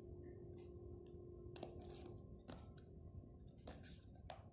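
Quiet handling of a small cardboard box and a utility knife: about half a dozen faint clicks and taps, over a steady low hum.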